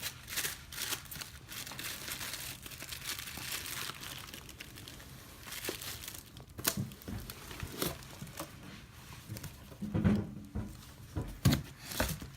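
Cardboard shipping box and packaging being handled, with steady crinkling and rustling, and a few dull thumps near the end as the boxes are knocked and set down.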